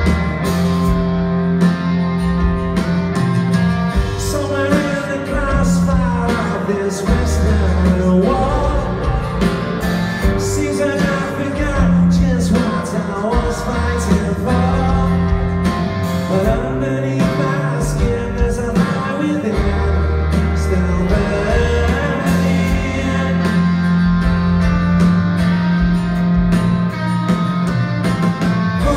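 A live rock band playing at full volume: electric guitars, bass and drums, with a male lead vocal singing over them. Heard from inside the audience.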